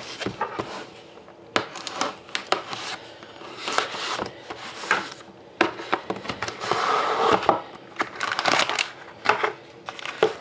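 Hands handling and opening a cardboard Panini Prime hockey card box: irregular taps, clicks and scrapes of cardboard with short spells of rubbing, as the lid is worked loose.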